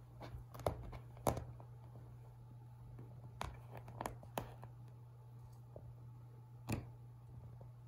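Soft scattered taps and scuffs, about half a dozen spread unevenly, from a cat moving on a fabric sofa and a hand playing with its paw, over a steady low hum.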